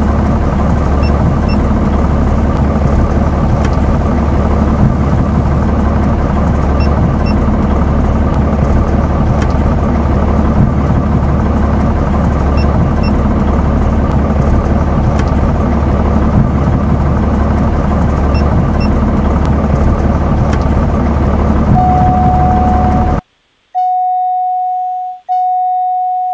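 Cessna 182T's six-cylinder Lycoming engine and propeller running steadily at taxi power, heard inside the cockpit as a dense low drone. About 22 s in a steady electronic beep-like tone comes in. The engine sound then cuts off abruptly, leaving the tone, which breaks twice near the end.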